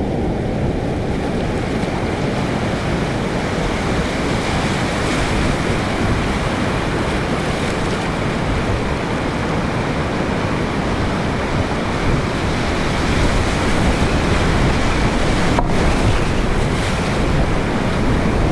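Whitewater rapids rushing steadily and loudly, a dense wash of moving water, with wind noise on the microphone.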